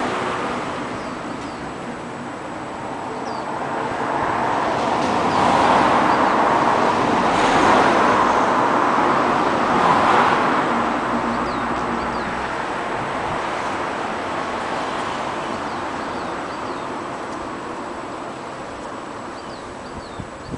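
Road traffic: the sound of a passing vehicle swells to a peak about a third of the way in, then slowly fades, with a few short bird chirps over it.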